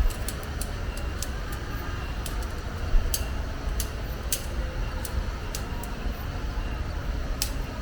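Scattered sharp light clicks and ticks at irregular intervals, with one louder knock about three seconds in, over a steady low rumble.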